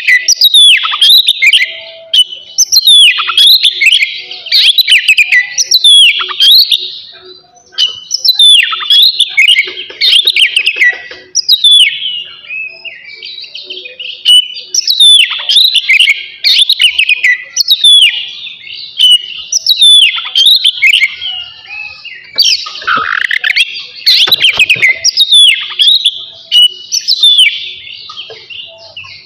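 Oriental magpie-robin (kacer) singing hard, a near-continuous stream of fast, varied whistled phrases with many sharp down-slurred notes. There is a brief lull about seven seconds in.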